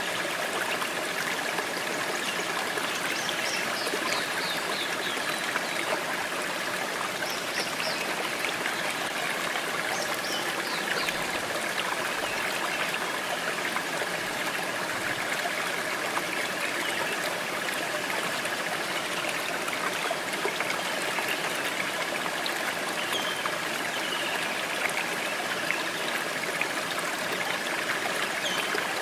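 Small woodland stream and low waterfall trickling and splashing over rocks into a pool: a steady, even rush of water.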